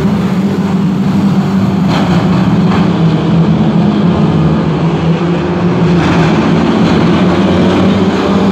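A pack of saloon stock cars racing, many engines running together at high revs in a loud, steady din.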